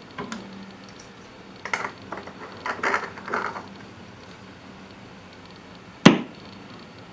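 A vinyl record being handled onto a turntable platter and a clear plastic spindle adapter pressed onto it, giving a short run of rubbing and clattering noises. Near the end there is a single sharp click as the tonearm is handled.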